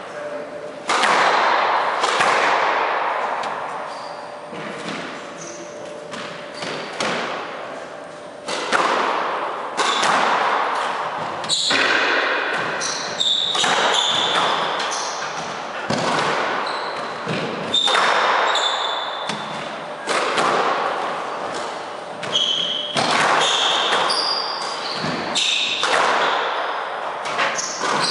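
Squash rally: the ball cracking off racquets and the walls again and again, each hit echoing around the court, with short squeaks from shoes on the wooden floor in the second half.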